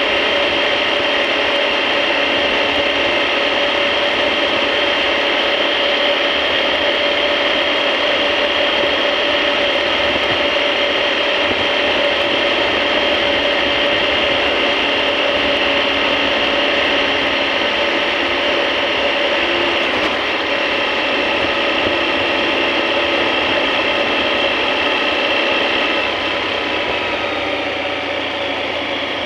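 Motorcycle running steadily at cruising speed, its engine and drivetrain giving a constant mechanical whine. About 26 seconds in it gets a little quieter and the whine drops in pitch as the bike eases off.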